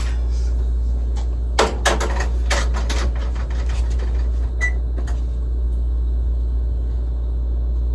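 Kitchen clatter over a steady low hum: a quick run of clicks and knocks about two to three seconds in, a few more after, and a short high ping near the middle.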